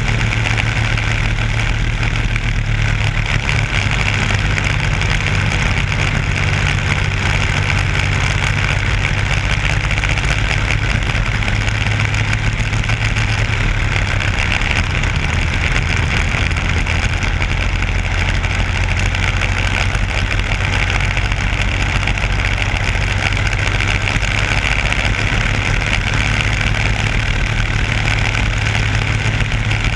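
Race car's engine running hard at speed, heard from an onboard camera mounted on the car. The engine note stays fairly steady throughout, with a constant rushing noise over it.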